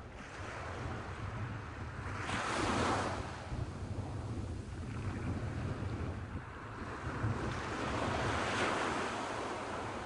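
Low surf breaking and washing up a flat sandy beach, the wash swelling louder twice, about two and a half seconds in and again near the end, with wind rumbling on the microphone throughout.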